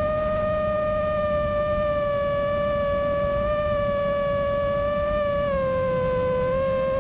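A 6-inch FPV quadcopter in fast cruise: its Brother Hobby Avenger 2507 1850 KV motors and 6x4.5 three-blade carbon props give a steady high-pitched whine, with wind rumble underneath. About five and a half seconds in, the pitch drops a little as the motors slow slightly.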